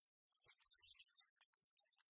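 Near silence, with faint scattered ticks.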